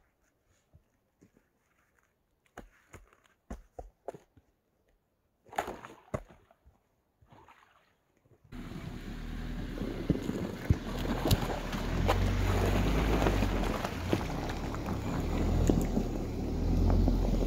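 A few scattered knocks and footsteps on the frozen track. About eight and a half seconds in, the engine of a quad bike on large low-pressure tyres comes in suddenly and runs loud as the vehicle drives close past.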